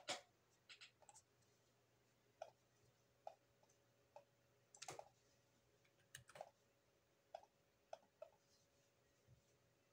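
Quiet computer mouse clicks, scattered about once a second with a few in quick pairs, as the picture is worked on in a paint program.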